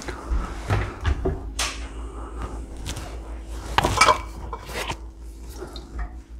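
Kitchen handling noise: scattered knocks and clinks of items and cookware being moved, with a louder clatter about four seconds in, over a faint steady hum.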